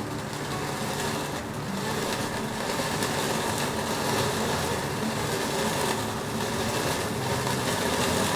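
Steady rush of a gas stove flame with pieces of cooked chicken held over it on a wire roti strainer, being charred for a smoky flavour.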